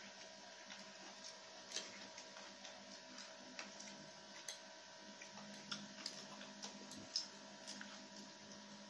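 Eating sounds: irregular light clicks and taps of plastic forks against plates as noodles are picked up and eaten, over a faint steady hum.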